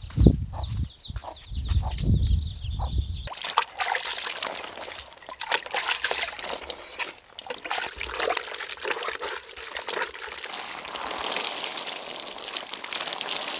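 A bucket bath: water scooped and splashed from a plastic bucket, then poured from a container over the head and body, splashing steadily near the end. For the first three seconds, before the splashing starts, a bird chirps repeatedly.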